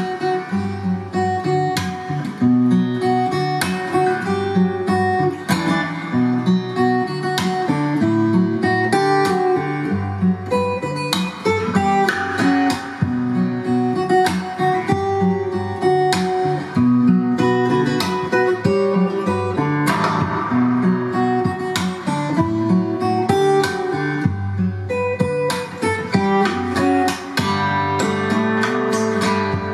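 Acoustic guitar music, strummed and plucked, playing back on a hi-fi system.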